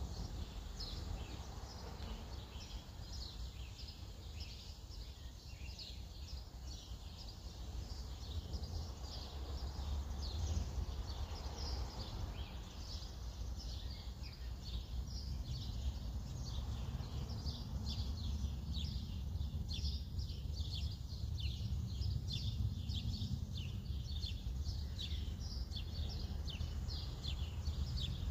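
Outdoor ambience: many birds chirping in quick short calls, busier from about ten seconds in, over a steady low background rumble.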